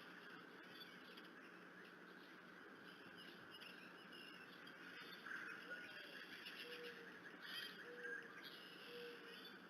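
Faint outdoor ambience with distant bird calls, including three short low notes about a second apart in the second half.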